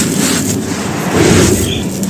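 Soft white chalky cylinders crumbling and crunching as they are crushed on a dry floor, a dense crackling with a heavier crunch a little past a second in.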